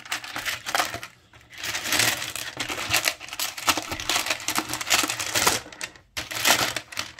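Small smooth pebbles clattering and clicking against each other and the sides of a plastic tub as a hand rummages through them: a dense run of clicks with a couple of brief pauses.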